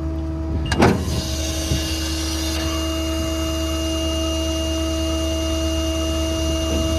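Service truck's PTO-driven hydraulic system working an outrigger: a click about a second in, then a steady hiss of hydraulic flow over the hum of the pump and the idling 6.7 Powerstroke diesel.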